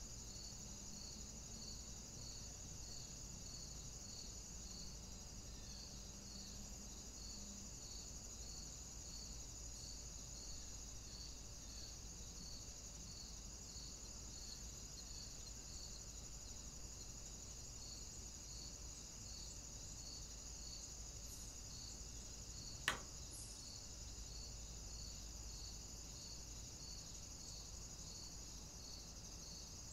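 Faint steady chirring of crickets or other insects, with regular evenly spaced pulses. A single sharp click about 23 seconds in.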